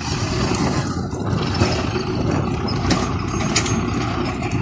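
Belarus MTZ-50 tractor's four-cylinder diesel engine running steadily under load as the loader pushes into a sand heap, with a few short knocks over it.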